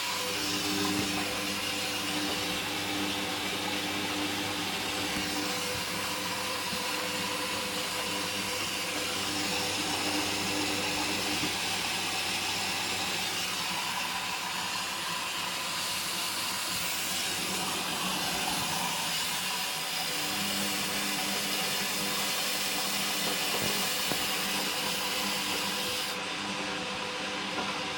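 Hoover Dynamic Rapid 30 washing machine running its first rinse: a steady rushing hiss of water with a machine hum that drops out about eleven seconds in and comes back about twenty seconds in.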